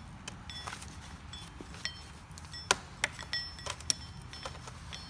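Irregular metallic clicks and clinks of hand tools working the mangled insides of an electric cipher deadbolt, some with a brief metallic ring; the sharpest click comes a little past halfway.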